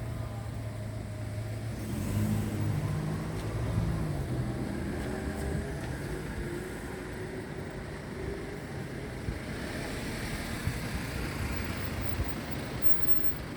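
Road vehicle engine accelerating, its pitch rising, over steady traffic noise.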